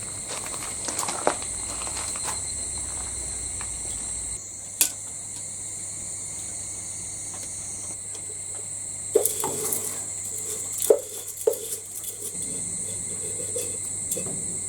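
Insects trilling steadily in one high, unbroken tone, with a few short, sharp knocks and clinks of gear being handled about a third of the way in and again around two thirds through.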